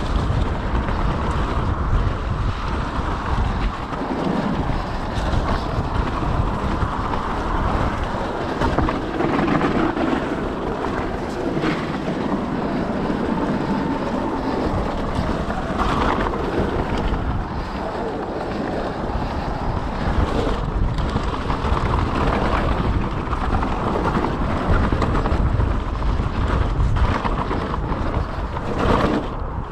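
Wind rushing over the camera microphone and tyre noise from a mountain bike riding a trail, with a few brief knocks and clatters from the bike over bumps.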